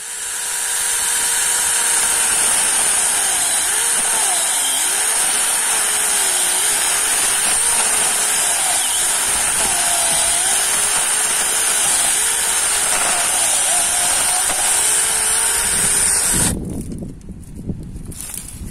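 VIOLEWORKS 88VF cordless 4-inch one-hand mini chainsaw running loud and steady while cutting through a small tree trunk, its pitch dipping and rising as the chain bites. It stops near the end, leaving a quieter rustle.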